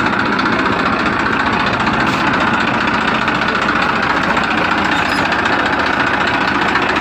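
Tractor engine running steadily at idle with a fast, even knocking chug.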